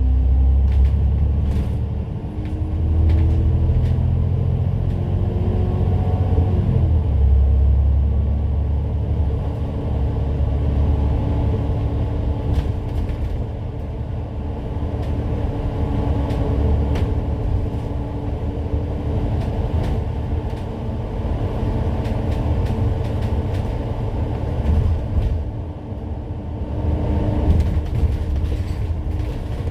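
Bus engine and drivetrain heard from inside the moving bus: a steady low rumble with the engine note climbing over the first several seconds and dropping sharply about seven seconds in, with frequent small rattles and clicks from the body.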